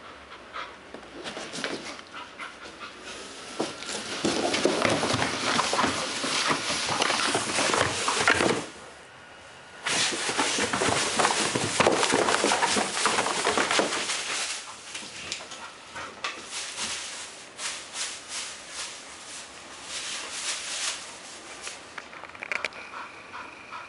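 Bull terrier puppy scratching and tearing at a large cardboard TV box: crackly cardboard scraping and rustling, loud in two spells of several seconds with a short lull between, then quieter scratching.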